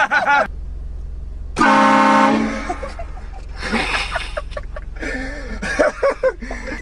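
Train horn fitted to a car sounds one short, loud, steady blast about a second and a half in. Swooping voices follow over a low rumble.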